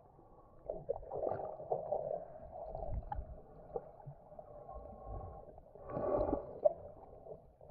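Muffled water sloshing and gurgling around a snorkel diver in the surf, picked up underwater. It comes in irregular swells, the strongest about six seconds in.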